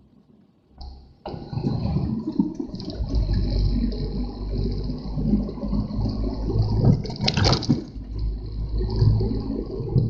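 Loud rushing of strong wind and rain, coming in suddenly about a second in, swelling briefly near the middle and cutting off sharply at the end.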